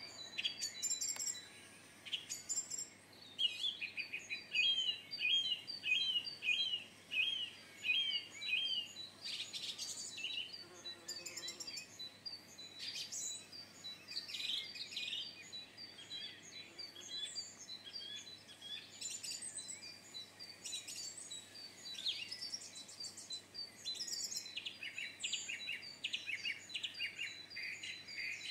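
Songbirds singing and calling, several overlapping, with a run of quick repeated whistled notes a few seconds in.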